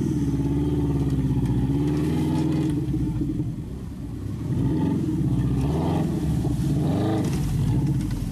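Engine of a stripped, roll-caged Subaru Legacy off-road car revving hard as it drives through deep mud. The revs climb and fall repeatedly, easing off briefly about four seconds in before rising again.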